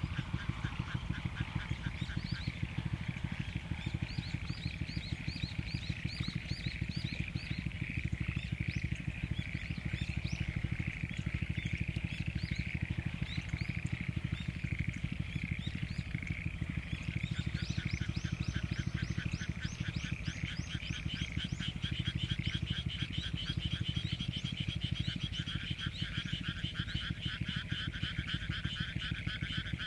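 Chorus of many frogs calling together from flooded rice paddies, which the recordist takes to be mostly black-spotted pond frogs, perhaps with other species. The calls are rapid pulsed trills overlapping one another, and more voices join about halfway through. A steady low pulsing runs beneath the chorus.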